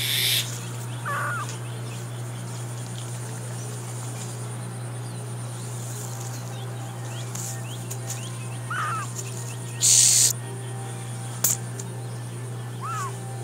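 A young mongoose gives three short, squeaky curling calls: one about a second in, one near nine seconds and one near the end. A steady low hum runs underneath. A brief loud burst of noise comes about ten seconds in, followed by a sharp click.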